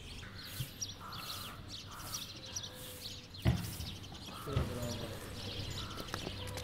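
Small birds chirping and twittering throughout, with a single sharp knock about three and a half seconds in and a short animal call a second later.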